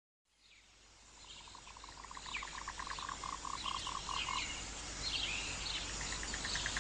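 A nature-sound ambience fading in from silence: an animal call pulsing about four times a second, with scattered bird-like chirps higher up.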